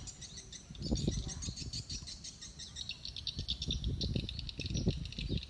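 Birds chirping in quick, busy runs, with irregular low rumbles breaking in from about a second in and again through the second half.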